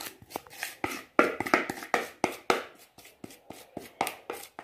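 A spoon scraping and knocking cake batter out of a mixing bowl: a rapid, uneven run of short scrapes and taps.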